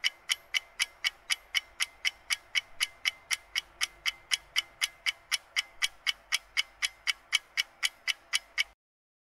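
Clock-like ticking sound effect of a quiz countdown timer, about four even ticks a second, cutting off suddenly near the end as the time runs out.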